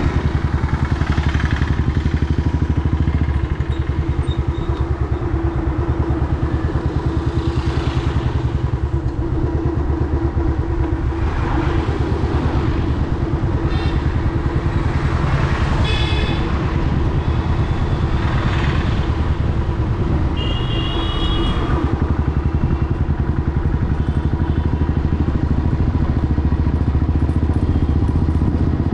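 Royal Enfield Classic 350's single-cylinder engine running steadily under way, with an even, rapid exhaust pulse. Short high tones sound briefly a few times near the middle.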